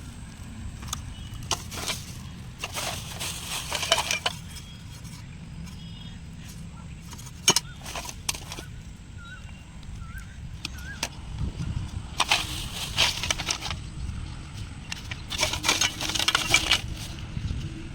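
Hand work on old headphones: several bursts of scraping with a few sharp clicks between them.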